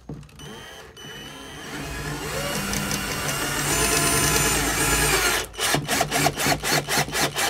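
Cordless drill driving a screw into a window frame: the motor whines and builds for a few seconds, then gives way to a run of sharp clicks about four a second near the end.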